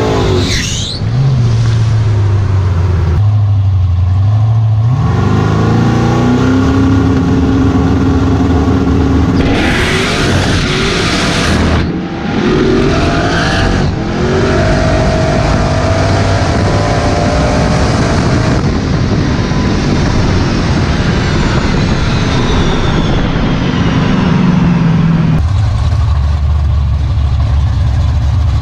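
Car engine running at a low steady note, then rising in pitch as the car accelerates, with heavy wind and road rush at speed. The tones fall away as it slows, and it settles back to a low steady note near the end.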